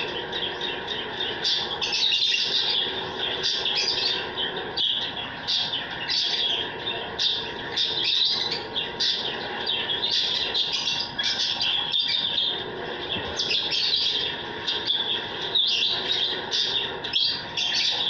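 A mixed aviary of small cage birds chirping nonstop, with many short, shrill calls overlapping.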